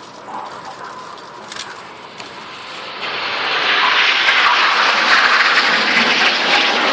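Five BAE Hawk T1 jets flying past in close formation. Their turbofan noise swells about three seconds in to a loud, steady rushing roar.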